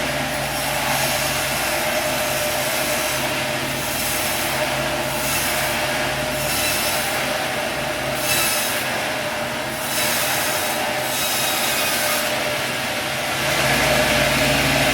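Sawmill blade running through a log, a dense rasping noise over a steady motor hum and whine, growing louder near the end.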